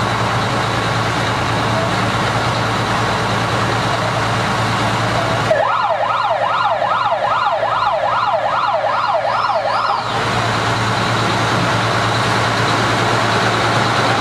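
Fire truck's electronic siren sounding a fast yelp in the middle for about four and a half seconds, its pitch sweeping up and down about twice a second. Before and after it, a truck engine idles steadily.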